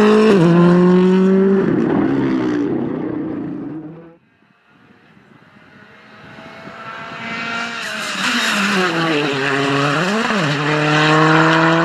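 Hyundai i20 R5 rally car's 1.6-litre turbocharged engine at high revs, dropping in pitch at a gear change and fading as the car moves away, then cut off suddenly about four seconds in. A second i20 R5 then comes closer and louder, its engine falling in pitch as it lifts off, blipping once, then rising steadily under hard acceleration.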